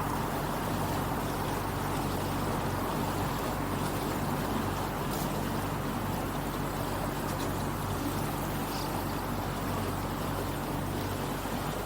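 Motorboat engine running at a steady speed under way, its low hum held constant under a steady rushing hiss of water and wind.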